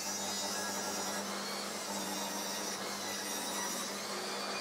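Table saw running with its blade tilted, ripping a bevelled slope along a spruce trim piece; a steady saw noise with a faint hum underneath.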